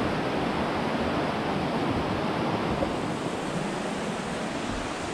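Steady rushing of flowing water, an even noise with no breaks.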